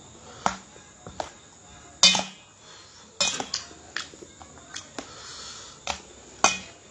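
A metal fork clinking and scraping against a stainless steel basin of noodles, about ten sharp clinks at uneven intervals. The loudest is about two seconds in.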